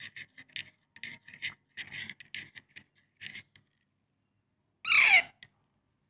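Metal spoon scraping and clinking against a ceramic cup while thick baby cereal is stirred, a quick run of short scrapes. About five seconds in, a baby parrot gives one loud, harsh call that falls in pitch.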